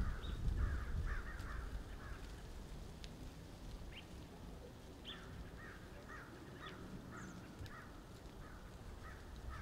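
Crows cawing: a run of harsh calls in the first two seconds, then a steady series from about five seconds in at two to three calls a second. Low wind rumble on the microphone fades in the first second or two.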